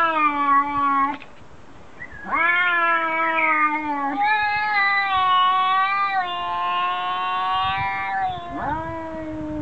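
A domestic cat yowling in long, drawn-out calls, each held for one to several seconds with a slightly falling pitch. A short call comes first, a very long one follows about two seconds in, and another starts near the end.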